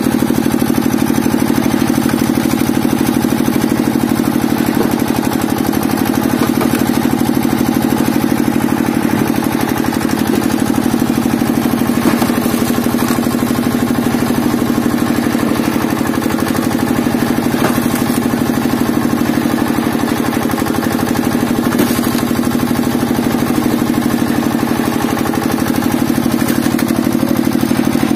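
Engine of a hydraulic wood splitter's power unit running steadily, driving the hydraulic pump, with a few faint knocks now and then.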